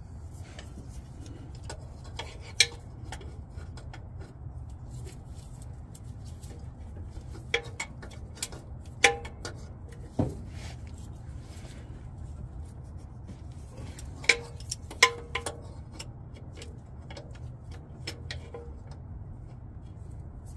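Pliers clinking and knocking against a spin-on oil filter and nearby metal as the filter is worked loose. About half a dozen sharp metallic clicks come at irregular intervals over a steady low hum.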